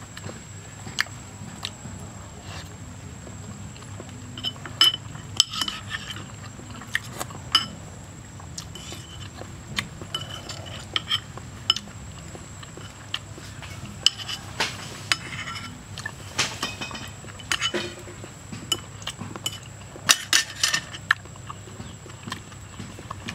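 Metal spoon and fork clinking and scraping against a ceramic bowl while eating, in irregular sharp clinks, some with a brief ring.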